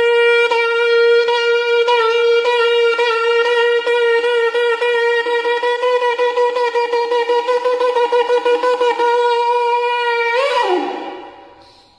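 An eland-horn shofar blown in one long held note, with a quick pulsing running through it that speeds up in the second half. Near the end the note bends down in pitch and dies away.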